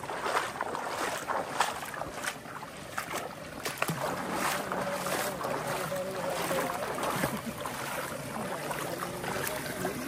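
River water splashing and sloshing, with many irregular sharp splashes.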